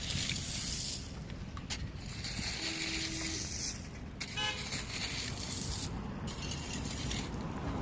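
Steady low traffic rumble with stretches of hissing noise, and a short vehicle horn toot about four and a half seconds in.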